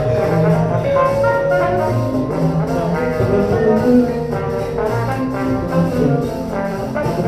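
Upbeat recorded music with a brass section of trumpets and trombones playing over a steady beat.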